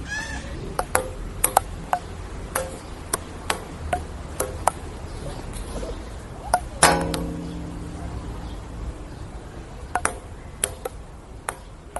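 Table tennis rally: the celluloid ball clicking off paddles and table in quick, irregular taps. About seven seconds in comes one louder knock with a short ringing tone that fades.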